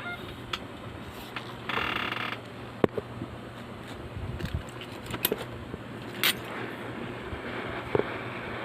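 Scattered small clicks and taps of tools and a phone circuit board being handled on a repair bench, then a faint steady hiss of air from about two-thirds of the way in, as from a hot-air rework station set to heat 350 and air 4.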